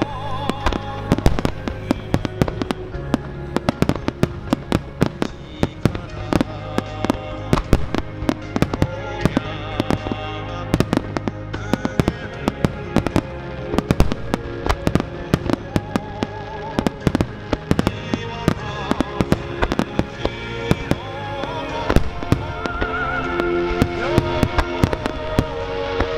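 A large star mine fireworks barrage: many aerial shells bursting in quick succession, with sharp bangs often several a second, over music. The barrage grows a little louder over the last few seconds.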